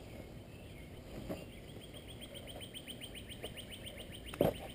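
A bird trilling: a fast, even run of short high chirps, about ten a second, lasting a little over two seconds from about two seconds in. Just before the end a single dull thump is the loudest sound.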